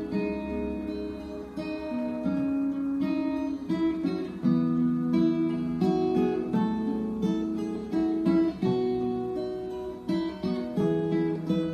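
Background music: acoustic guitar playing a melody of plucked notes.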